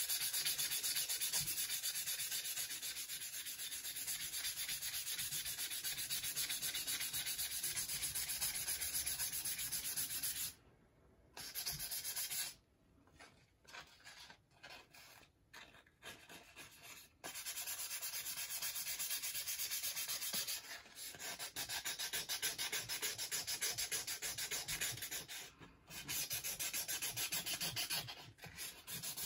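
Sandpaper rubbed by hand in quick back-and-forth strokes over the rusty steel face of a small anvil, a steady scratchy hiss that lifts the rust. Near the middle it stops briefly, then comes in short scattered strokes for a few seconds before the steady sanding picks up again.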